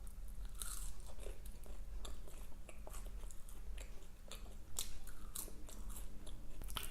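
Close-miked chewing of fast food: irregular wet mouth clicks and small crunches.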